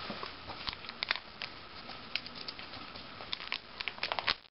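Clear plastic pocket pages of a trading-card binder crinkling and clicking as they are handled and a page is turned, with a quick flurry of crackles about four seconds in.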